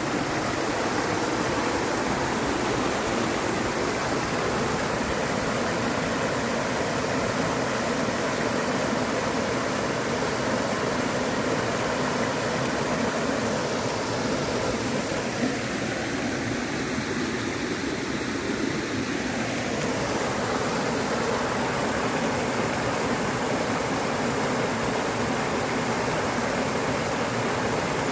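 Stream flowing steadily: a constant, even rush of running water.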